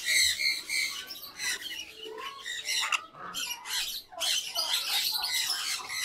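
Many birds squawking and chirping, with short, high calls overlapping one another throughout.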